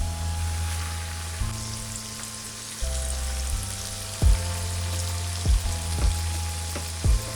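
Breaded chicken strips deep-frying in hot sunflower oil, a steady crackling sizzle. Background music with a bass line and drum beats plays over it.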